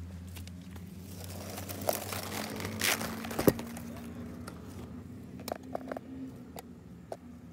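Dry grass stems and twigs rustling and crackling as they are pushed aside, with scattered clicks and one sharp knock about three and a half seconds in.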